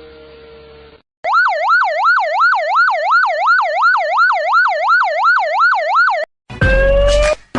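Electronic emergency-vehicle siren on a fast yelp, sweeping up and down about three times a second for about five seconds before cutting off. Near the end a different loud effect with a rising tone starts.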